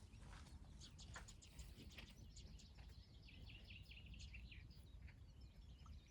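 Faint chorus of small songbirds: many quick, short chirps from several birds overlapping, over a low steady rumble of background noise.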